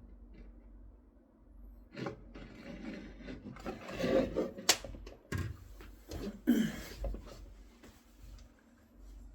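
Hands working on a hard-hat welding mask: irregular rubbing, scraping and handling noises, with a sharp click a little under five seconds in.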